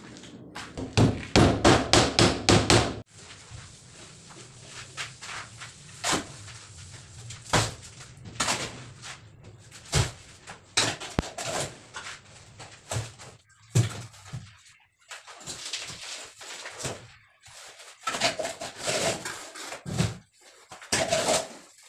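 Hammer striking the wooden formwork of a concrete countertop: a quick run of blows lasting about two seconds, followed by scattered single knocks.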